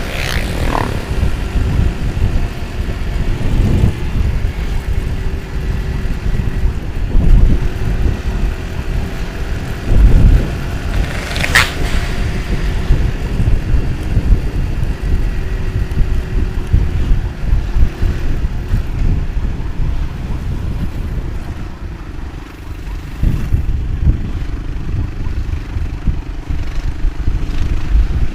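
Motorcycle on the move, a steady engine note under heavy wind buffeting on the microphone. A brief sharp high sound cuts through about twelve seconds in.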